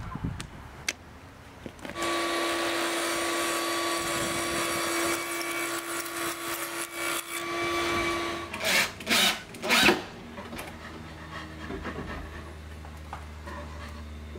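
Portable table saw switched on about two seconds in, running with a steady whine, then a strip of wood fed through the blade, giving three loud bursts of cutting. A low steady hum follows near the end.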